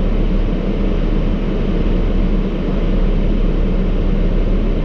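Steady low rumble with a constant hum and hiss, unbroken throughout.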